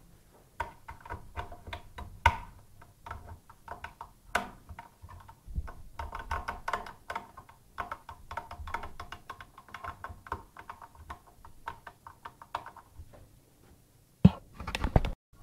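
Small hard parts clicking, rattling and scraping as a chain-stitch attachment is worked into a home sewing machine's rotating hook in place of the bobbin case. There are a few sharper clicks along the way and a louder knock near the end.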